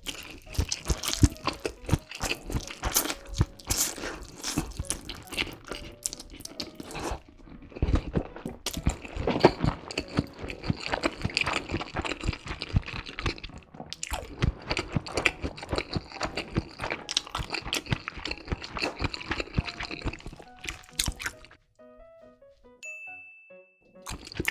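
Close-miked chewing and crunching of crisp fried food, a rapid dense crackle of bites. The crackle stops a few seconds before the end, and a short steady high beep follows.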